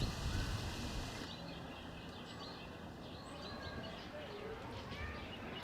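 Outdoor background noise with a low rumble and faint, scattered bird chirps.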